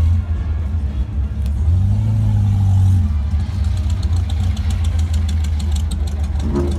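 A car engine running close by, swelling briefly about two seconds in, then settling back, with a fast, even light ticking joining it about halfway through.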